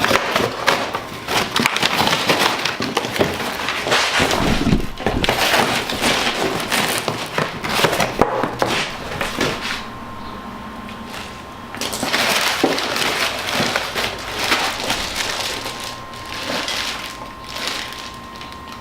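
Cardboard box and packing material crinkling and rustling as a cold air intake kit is unpacked, with irregular crackles and knocks, busiest in the first half.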